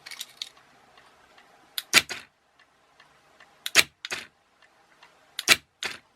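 Three pairs of sharp mechanical clicks about two seconds apart, from a remote-switched relay board and a car door lock actuator being operated.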